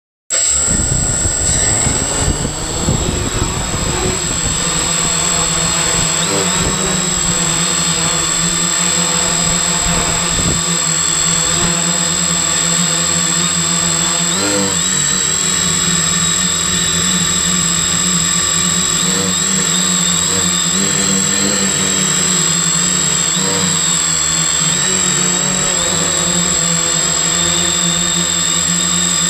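Multirotor drone's electric motors and propellers running in flight, picked up by the onboard camera: a steady, loud buzzing hum whose pitch wavers as the throttle changes, with a constant high whine over it.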